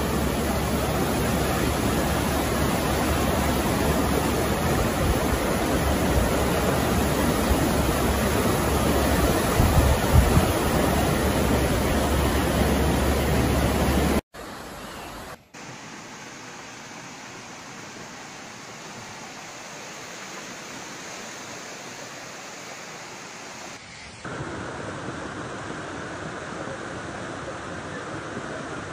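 Floodwater rushing through a town street, a loud steady roar. About halfway through it cuts off abruptly to a quieter, similar rush, which gets louder again near the end.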